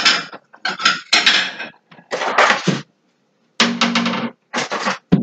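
Dishes clattering and clinking in a string of short bursts as someone rummages through them for a small plate.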